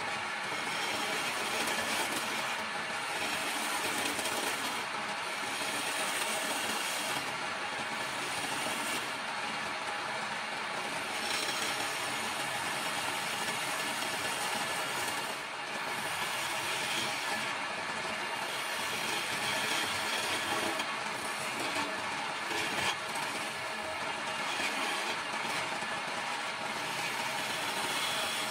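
Wood lathe running under its electric motor while a hand-held turning tool cuts into the spinning wood blank: a steady scraping, shaving noise over the motor's drone, swelling slightly as the cut varies.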